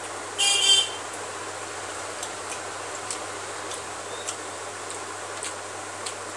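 Faint clicks of eating rice by hand from a steel plate, heard over a steady background hiss. A short, loud, high-pitched squeak comes about half a second in.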